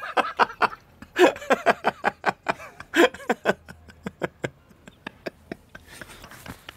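Metal window bars rattled and shaken by hand: a run of quick, irregular clanks that fade out after about four seconds.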